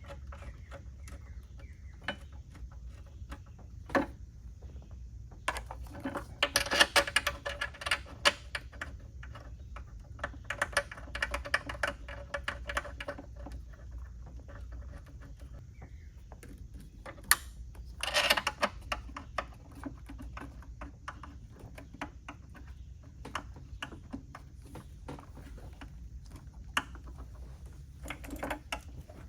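Scattered light metallic clicks and clatter of bolts and hand tools, thickest about 7 and 18 seconds in, as the intake manifold bolts are threaded in by hand. A steady low hum runs underneath.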